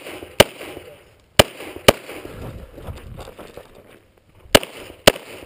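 Pistol shots fired in quick pairs during a practical shooting course of fire: five sharp shots, two pairs about half a second apart with a pause of a couple of seconds between them.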